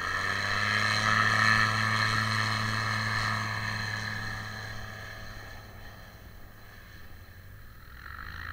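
NG-6 ultralight airplane's piston engine and propeller at high power, running away down the runway on the takeoff roll. A steady drone, loudest about a second in, then fading as the aircraft moves off.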